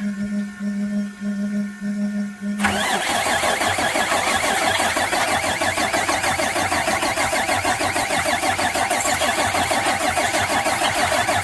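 A steady electric hum from the fuel delivery pump, then about two and a half seconds in a Cummins ISC 8.3 diesel starts being cranked by its starter motor in a fast, even rhythm without firing. It is a crank-no-start: the high-pressure fuel rail pressure is not building.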